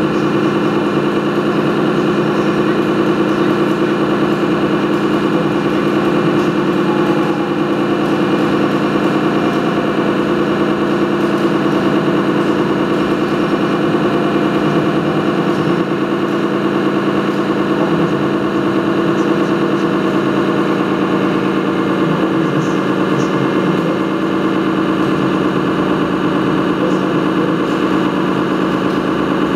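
Steady, unbroken drone of a radio-controlled 1:8 scale model vehicle running, its pitch constant throughout.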